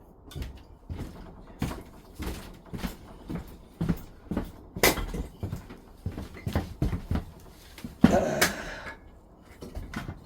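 Firewood being handled: irregular knocks and clatter of wooden sticks, with a louder, longer scraping rustle about eight seconds in.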